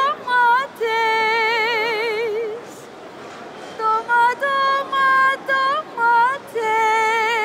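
A woman's high voice singing unaccompanied: a run of short notes stepping up and down, then a long held note with vibrato. The phrase comes twice, with a short pause in the middle.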